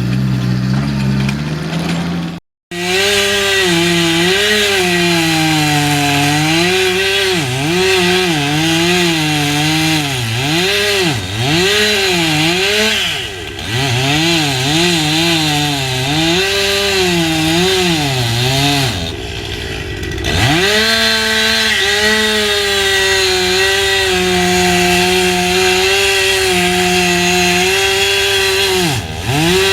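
Chainsaw running and cutting wood, its engine pitch repeatedly dipping under load and climbing back. The sound stops for a split second about two and a half seconds in.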